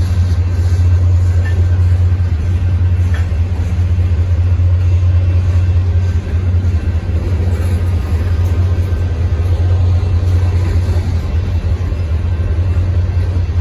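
Cars of a Union Pacific manifest freight train rolling past close by, a loud, steady low rumble of steel wheels on rail.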